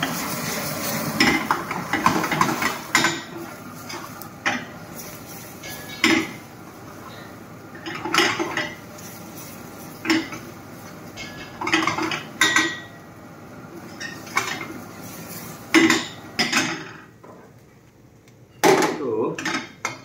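A spoon stirring gravy in a cooking pan, clanking and scraping against the pan every second or two, with a short lull shortly before the end.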